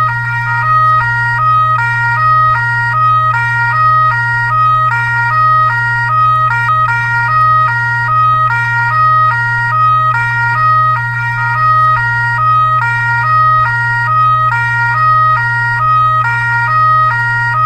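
Fire truck siren sounding a two-tone hi-lo pattern, stepping between a high and a low pitch about once a second, over a steady low hum.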